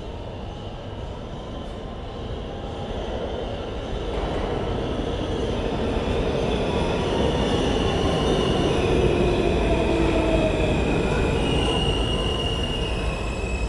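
R160A-1 subway train running the C local pulls into the station, growing steadily louder as it comes alongside the platform. High squealing tones from the wheels come in during the second half.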